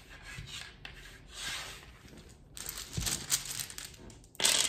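A hand rummaging in a cloth bag of wooden Scrabble tiles: the fabric rustles and the tiles click against one another, with a louder clatter near the end.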